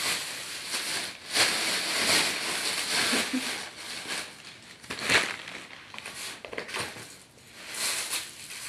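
Thin plastic shopping bags rustling and crinkling in irregular bursts as they are handled, with paper wrapping crinkling near the end as it is pulled from a box.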